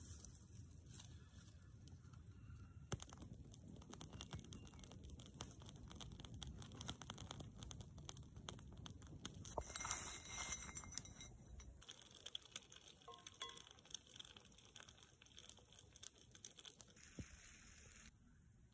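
Small wood fire crackling and popping faintly, with irregular snaps, densest about halfway through.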